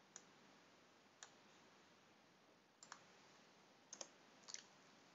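Faint, scattered clicks from someone operating a computer: two single clicks, then a few quick pairs, over a low steady hiss.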